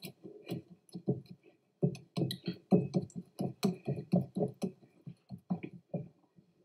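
Oiled hands patting and pressing a ball of yeasted naan dough in a glass bowl: a run of soft, quick pats, about four a second, coming closest together in the middle.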